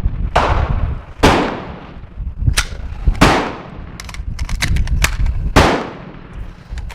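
Gunfire from other shooters on the range: about five loud shots at irregular spacing, each with a long echoing tail, and a few fainter cracks in between. A steady low wind rumble on the microphone runs underneath.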